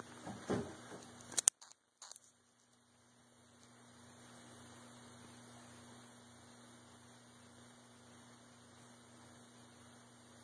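Low steady electrical hum over a faint hiss. About a second and a half in there is a short rubbing noise and a sharp click, then a moment of dead silence before the hum comes back.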